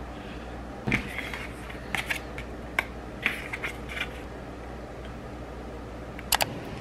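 Scattered light clicks and brief paper rustles from handling Ohuhu markers and printed color swatch cards, over a steady low hum, with a sharp double click near the end.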